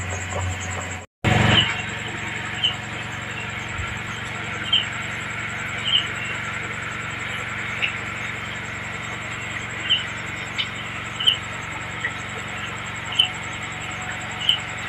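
Short high chirps from a small animal, repeated every second or two at an uneven pace, over a steady background with a faint high pulsing whine. The sound drops out briefly about a second in.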